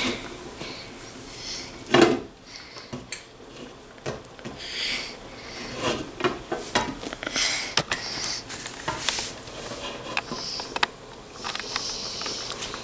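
Scattered knocks and clinks of objects being handled, with short rustling or hissing sounds between them; one louder knock about two seconds in.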